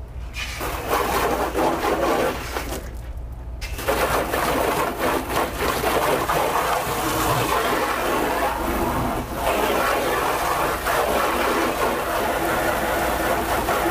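A water jet from a hose spray gun hitting a car's front bumper, hissing and spattering off the paint as bug residue is rinsed off. The spray stops briefly about three seconds in, then runs on.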